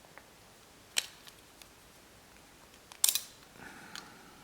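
Small parts of a disassembled folding knife clicking against each other and the work surface as they are handled: a sharp click about a second in, a louder double clack about three seconds in, then a faint brief scrape.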